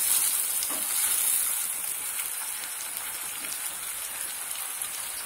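Onions and ginger-garlic paste sizzling in hot oil in a non-stick pot, a steady crackling hiss. For the first second or two a wooden spatula stirs them and the sound is a little louder; then it settles to a steady sizzle. The paste is being fried to cook off its raw smell.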